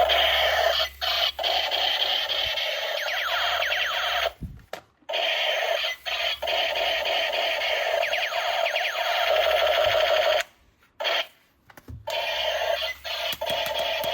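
Electronic toy sound effect: a loud, warbling alarm-like tone with repeated sweeping glides, which cuts off abruptly twice and starts again, as when the trigger of a toy weapon is pressed and released.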